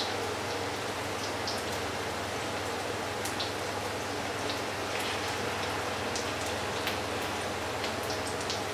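Grated-potato fritters frying in hot oil in a pan: a steady sizzle with scattered sharp crackles and pops.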